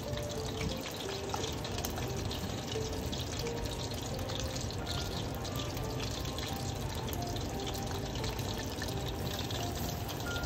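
Chicken pieces for karaage deep-frying in hot oil: a steady sizzle with fine crackles throughout.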